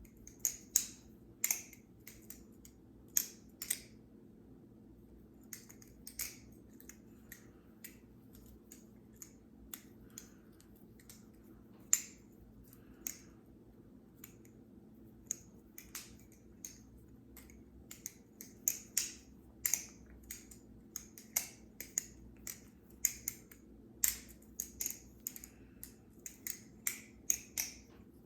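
Theone bamboo-style balisong (butterfly knife) being flipped: irregular sharp clicks and clacks as the handles swing and strike, several a second in places, with a short pause about four seconds in.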